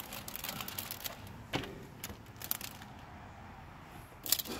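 Plastic window tint film crinkling and rustling as hands press and position it against the inside of a truck windshield, with a sharp click about a second and a half in and a louder crackle near the end.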